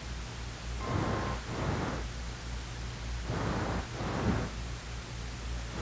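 Background noise of an old analog soundtrack: a steady low hum with a swell of rushing noise about every two and a half seconds, and a brief faint beep about a second in.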